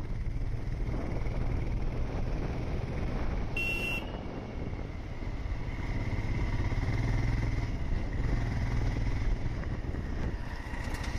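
Motorcycle engine running steadily with wind and road noise as it is ridden along. A brief high-pitched beep sounds about three and a half seconds in.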